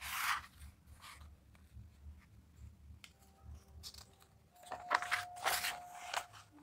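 Paper pages of a printed question paper booklet rustling as they are handled: a brief rustle at the start, then a run of crisp paper crackles about five seconds in as a page is turned over.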